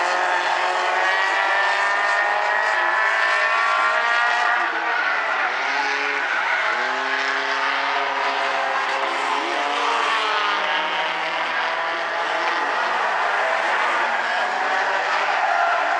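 Several small four-cylinder compact-car stock cars racing on an oval, their engines running at high revs with overlapping notes that rise and fall as they lap. A car passes close about six to seven seconds in.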